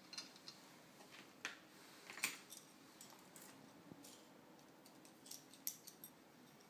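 Scattered small metallic clicks and clinks of stainless-steel knife-sharpener parts being handled and fitted together, among them a spring-loaded guide rod and its clamp. The sharpest click comes about two seconds in.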